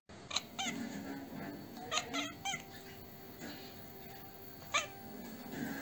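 Domestic cat chattering in a few short bursts of quick chirps, one near the start, a cluster around two seconds in and a single one near the end: the excited chatter a cat makes at a bird or insect it cannot get to.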